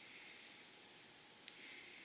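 Near silence: faint room hiss, with one small click about one and a half seconds in.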